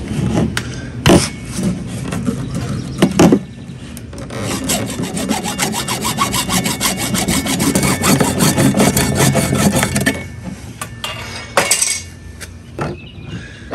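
Hand saw cutting through PVC pipe, a run of rapid back-and-forth strokes that stops about ten seconds in as the old threaded fitting is cut off. A few loud knocks of the pipe being handled come before and after the sawing.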